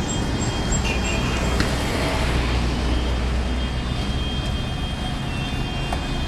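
Steady roadside noise: a low rumble with a hiss, like street traffic running by.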